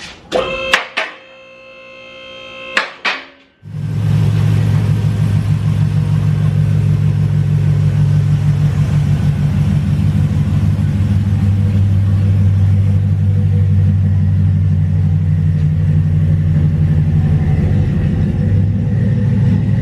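Pickup truck engine idling through its exhaust with a steady, loud low rumble, starting about four seconds in. It is preceded by a few short pitched tones.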